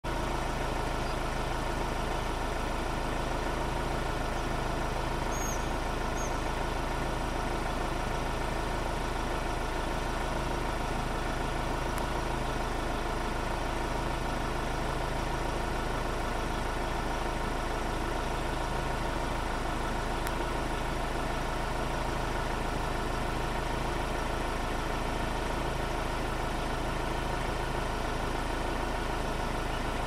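A vehicle engine idling steadily, a constant low hum with no change in speed.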